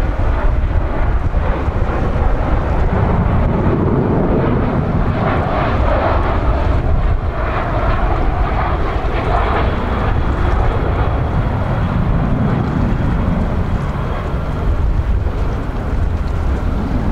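Boeing 737-400 on final approach, its CFM56-3 turbofan engines running at approach power: a steady jet rumble that swells a few seconds in and eases off toward the end, over a low wind rumble on the microphone.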